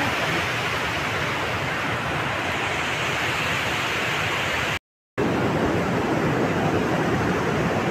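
Steady rushing of a fast mountain river over a stony bed. It cuts out for a moment about five seconds in.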